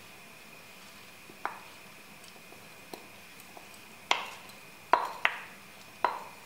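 Sharp knocks with a short ring: a dish or utensil striking the rim of a nonstick frying pan while rice is added to it. There are a few light ones at first, then four louder ones in the second half, over a faint steady high whine.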